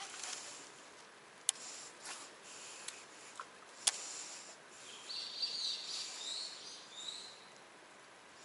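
A bird chirping in a run of short gliding notes for about two seconds, starting about five seconds in. Before it, two sharp clicks and a few lighter ticks.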